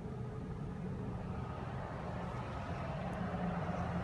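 Steady low hum of a motor vehicle's engine running close by, growing slightly louder in the second half.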